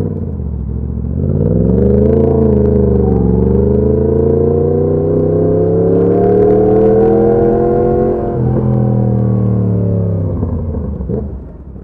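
Yamaha FZ-10's crossplane inline-four engine pulling away under acceleration, heard from on the bike: the pitch climbs, dips briefly about two and a half seconds in, climbs steadily again, drops about eight seconds in, then holds before fading out near the end.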